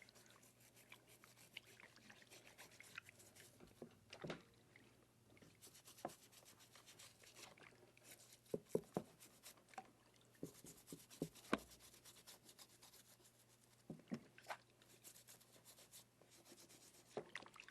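Faint scrubbing and scratching of a brush on a deer skull, in several spells of quick strokes, with a few light knocks of bone being handled.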